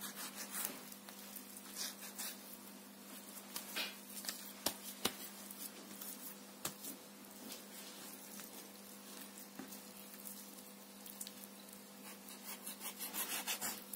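Faint wet squishing and scattered light clicks of a knife and hands working raw pork knuckle meat on a wooden board, over a steady low hum.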